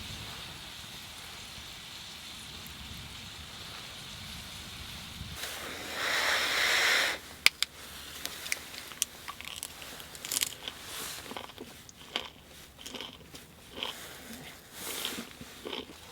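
Irregular crunching and clicking of food being eaten, after a steady hiss and a louder rush of noise about six seconds in.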